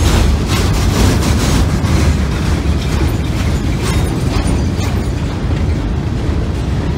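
Loaded freight cars of a Norfolk Southern unit train rolling across a steel railroad trestle: a loud, steady, heavy rumble with scattered clatter from the wheels.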